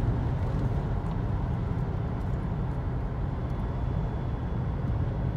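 Steady low road and tyre noise inside the cabin of a CODA electric car coasting in neutral at track speed, with no engine sound.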